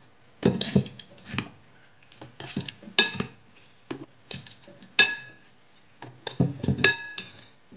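A metal spoon clinking and scraping against a ceramic bowl and a stainless-steel grinder jar while soaked urad dal is scooped across. A series of sharp clinks, a few of them ringing briefly, the clearest about three, five and seven seconds in.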